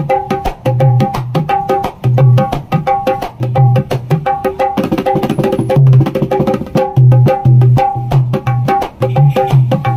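Dholak, a rope-laced wooden barrel drum, played by hand in a fast rhythm. Quick ringing strokes on the small treble head run over recurring deep bass strokes.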